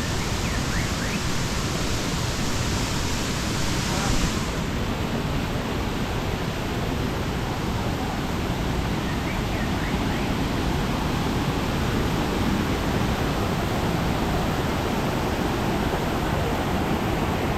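Mountain stream water rushing in a loud, steady hiss, brighter for the first four seconds or so.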